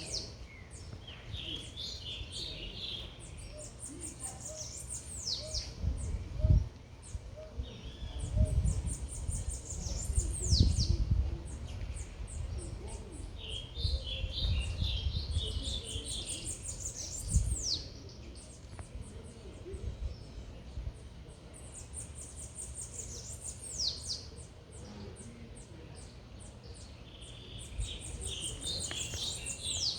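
Small songbirds singing: repeated high, fast trills ending in quick downward-sweeping whistles every few seconds, with clusters of lower chirps in between. Low rumbles from the city background come and go underneath.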